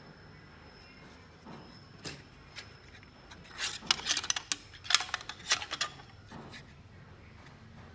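Handling noise from TB6600 stepper-driver modules with metal heat-sink housings knocking and clicking against each other in the hands. There are a few single clicks, then a dense cluster of sharp clacks from about three and a half to six seconds in.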